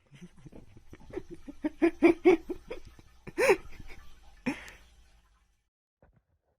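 A person laughing in a run of short, quick bursts, then two louder single outbursts before it stops.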